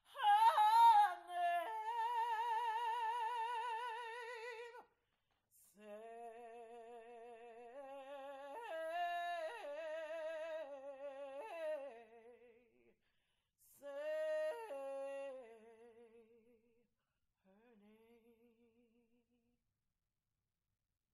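A woman singing unaccompanied: one voice holding long notes with wide vibrato over several phrases, the last phrase soft and low before she stops.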